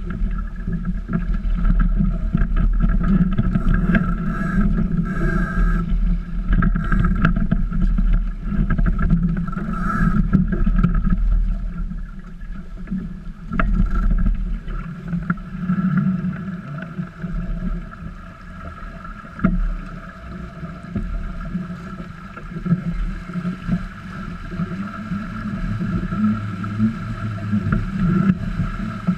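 Small Tramp trailer-sailer trimaran under sail: water rushing along the hulls and wind on the microphone make a steady noise, with a few sharp knocks from the boat.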